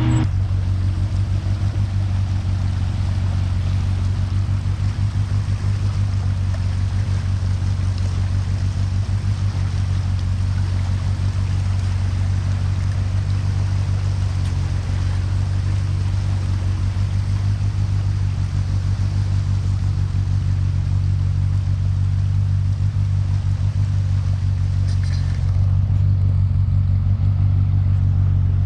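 A UTV engine idling steadily with a fast, even pulse, over the hiss of rushing floodwater. About 25 seconds in, the hiss thins and the engine gets a little louder.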